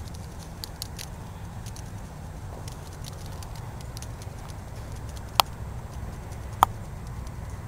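Low steady outdoor rumble with faint scattered ticks, and two sharp clicks a little over a second apart in the second half.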